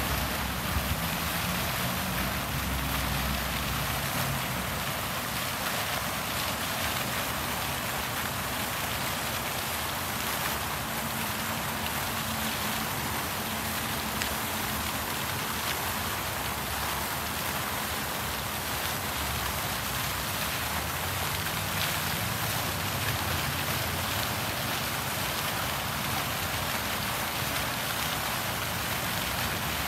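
Plaza fountain jets splashing steadily into a stone pool, an even hiss of falling water.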